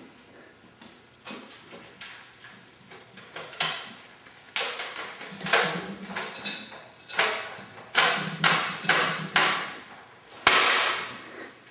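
An irregular series of knocks and clattering bangs, sparse at first and growing louder and closer together from about a third of the way in, with the loudest bang near the end.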